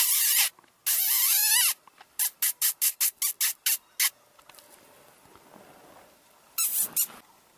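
Predator call sounding prey in distress: two long, harsh squeals, then a quick run of about eight short squeaks, roughly four a second, and a last short burst of squeaks near the end.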